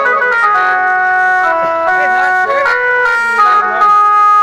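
Instrumental break in a live folk song: a reedy melody instrument plays held notes that step up and down, with several notes sounding together.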